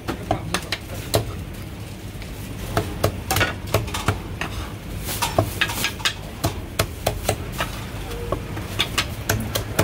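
Meat cleaver chopping a whole cooked chicken through the bone on a thick wooden chopping block: a run of sharp chops at an uneven pace.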